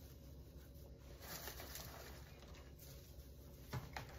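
Faint rustle and patter of loose arugula leaves dropped by hand onto a pizza crust spread with a creamy base, with two short soft ticks near the end.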